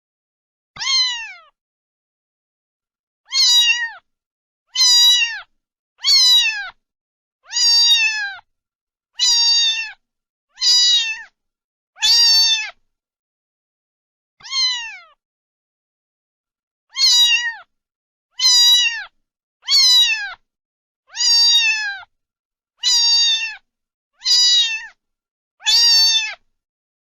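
Domestic cat meowing again and again, about sixteen short meows, each falling in pitch at the end, mostly one every second and a half, with two longer pauses between them.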